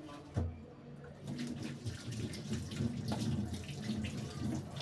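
Kitchen tap running into a stainless-steel sink while fruit is rinsed by hand under it, the water splashing steadily. A soft knock sounds about half a second in.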